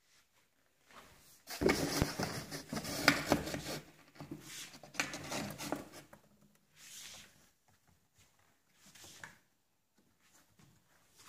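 Scraping, rubbing and light knocks on a cardboard box cat house, loudest in a dense burst about two seconds in, then in shorter, quieter bursts.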